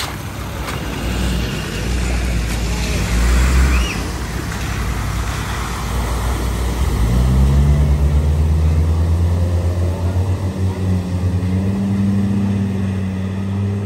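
Land Rover Discovery 4x4s driving through a deep flooded ford, with water splashing and spraying around the wheels over their engines. About seven seconds in, an engine note rises and then holds steady.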